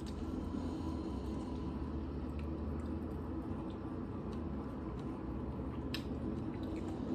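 Faint eating sounds: soft mouth clicks and smacks over a steady low hum.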